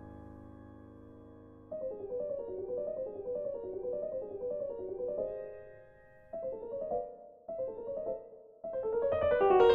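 Solo piano: a held chord dies away for the first couple of seconds, then a quick, light figure of short detached notes begins. It breaks off in a few brief pauses and grows louder near the end.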